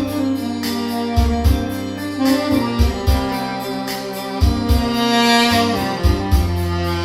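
Tenor saxophone with a stainless-steel mouthpiece playing a melody of held notes, dry with no added effects, over a backing track with a bass line and a steady beat.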